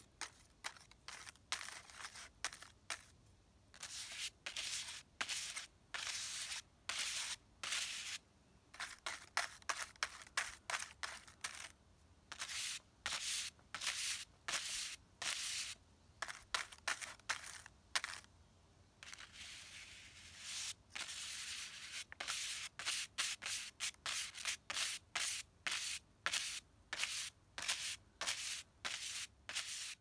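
A paint-loaded pine-needle brush swishing and dabbing against paper: many quick, irregular brushing strokes, several a second, with a few longer sweeps.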